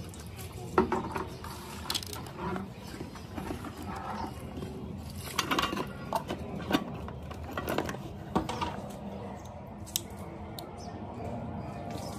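Irregular small clicks, taps and rustles of a street cobbler handling his hand tools and the sneaker he is stitching, with a few sharper knocks.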